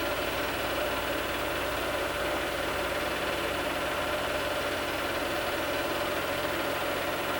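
Steady mechanical hum of a motor running evenly, with a constant mid-pitched tone over a light hiss.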